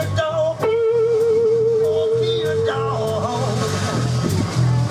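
Live rockabilly band playing: a long held note that wavers in pitch rings out for about three seconds over a steady pulsing bass line and drums.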